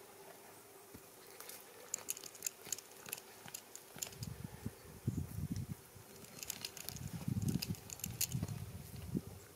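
Goats eating a fir Christmas tree: clusters of crisp clicks and snaps as needles and twigs are bitten off, with dull low rustling as the branches are tugged and shaken.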